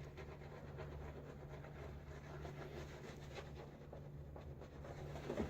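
Faint, irregular scratchy swishing of a silvertip badger shaving brush scrubbing shaving-cream lather onto the face, a little louder near the end.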